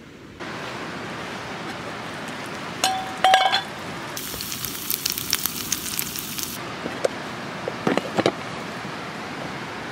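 Gyoza steam-frying in a frying pan over a campfire: a few ringing metal clinks about three seconds in, then a loud sizzling hiss for about two seconds as the water in the pan boils off. Near the end there are a few knocks as a second pan is set upside down over the first to flip the dumplings.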